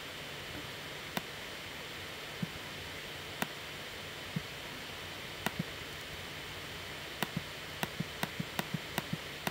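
Computer mouse clicks over a steady hiss: single clicks a second or so apart, then a quicker run of clicks, about five a second, near the end.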